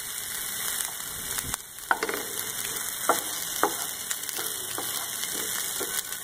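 Onion, potato and peas sizzling in oil in a nonstick pan while a wooden spatula stirs them. Short knocks and scrapes of the spatula against the pan come every half second or so over a steady sizzle.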